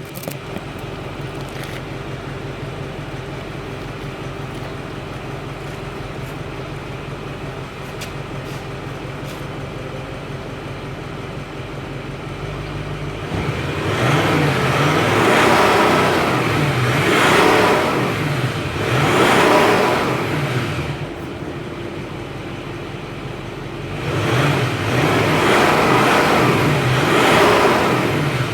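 Audi A8 4.0 TDI's stock V8 diesel idling steadily, then revved up and down several times in two spells about halfway through and near the end, settling back to idle between them.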